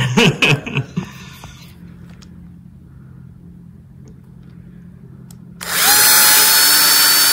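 Cordless drill spinning up and running for about two seconds near the end, its motor whine rising then holding steady, as the bit drills a little deeper into the head of a solid aluminium rivet to drill it out.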